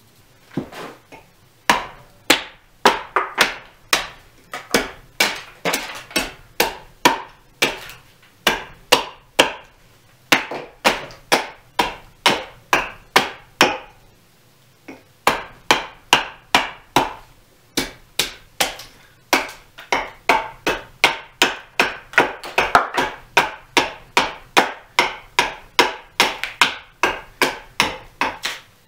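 Hultafors hatchet chopping into a green (freshly cut) birch blank braced on a chopping block: sharp blows about two a second, with two brief pauses.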